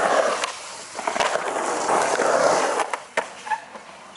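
Skateboard wheels rolling across a smooth concrete bowl, the rush of wheel noise swelling and fading as the skater carves. A few sharp clicks come from the board. The rush drops away about three seconds in.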